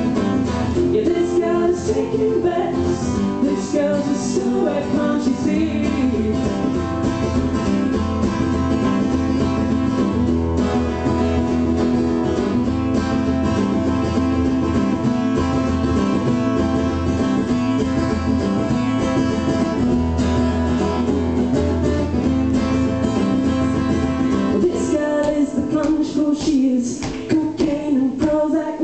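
Live song performance in an instrumental stretch, with guitar and other sustained instrument tones playing steadily and no sung lyrics.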